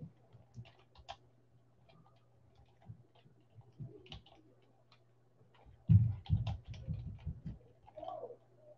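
Typing on a computer keyboard: scattered light keystrokes, then a denser run of heavier taps about six seconds in. A faint steady low hum runs underneath.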